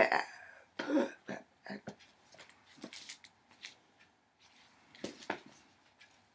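Handling noise from hands moving and a book being held up: an irregular string of short knocks, taps and rustles, loudest at the very start and about a second in.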